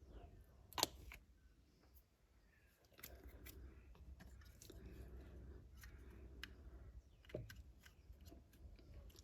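Faint handling of small plastic model kit parts at a workbench: light rustling with scattered sharp clicks, the loudest a little under a second in and another near seven seconds in.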